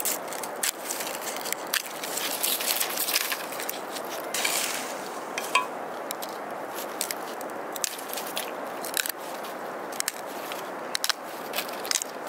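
Split bamboo strips being woven into a basket by hand, giving many irregular sharp clicks over a steady hiss.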